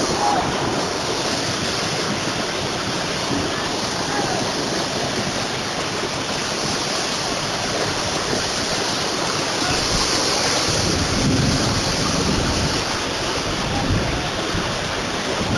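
Muddy floodwater rushing down a street in a steady torrent after heavy rain, a continuous even rush of water.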